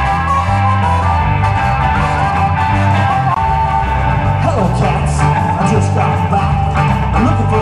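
A blues band playing a boogie shuffle: electric guitar, bass guitar, drum kit and harmonica, with a steady repeating bass line. Bending melodic notes come in about halfway through.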